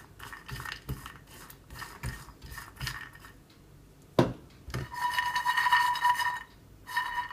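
A silicone spatula scraping and stirring walnut pieces as they dry-toast in a nonstick frying pan, a series of short scrapes. After two knocks, the pan is shaken back and forth on the glass-ceramic hob, a longer grating sound with a steady tone in it that stops and briefly returns near the end.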